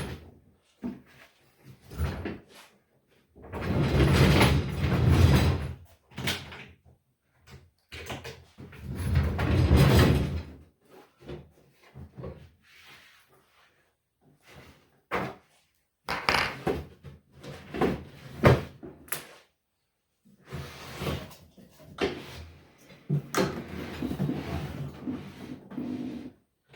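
A wooden flip-top tool cart being handled: two long, loud rumbling stretches, then a run of sharp knocks and clunks like a cabinet being opened and shut.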